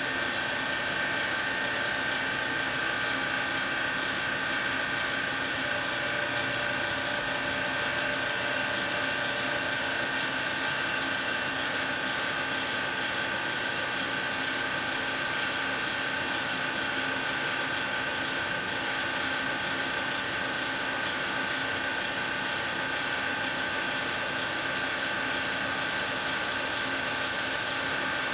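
Tesla coil running steadily while it drives a plasma discharge through low-pressure krypton in a glass chamber: an even electrical hum with a high whine. Near the end the high hiss briefly gets louder as bright filament arcs begin to strike.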